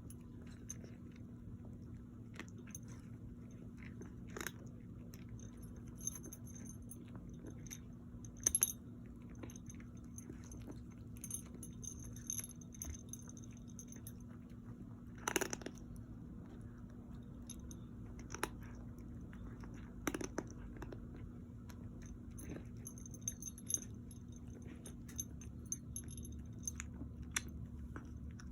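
Irregular crunching and clicking of chewing, with sharper cracks about 8 seconds and 15 seconds in, over a steady low hum.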